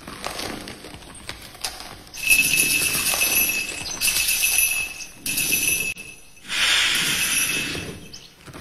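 Cartoon sound effect of a rattlesnake's tail rattling, in three long buzzing bursts from about two seconds in. A few light clicks come before it.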